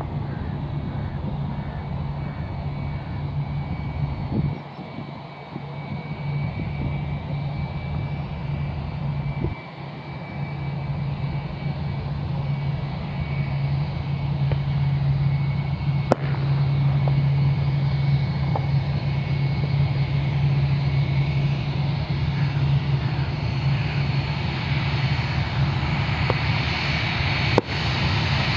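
Jet airliner engines running with a steady low hum, growing louder partway through and taking on a strong rising hiss over the last few seconds as the aircraft draws nearer. Two sharp clicks stand out, one about halfway and one near the end.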